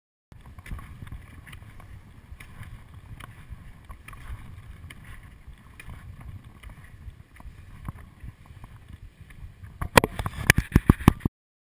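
Wind buffeting a GoPro's microphone while a ski tourer skins uphill, with faint regular clicks and swishes of the strides and pole plants. Near the end a quick run of loud sharp knocks, the loudest sound, then the sound cuts off suddenly.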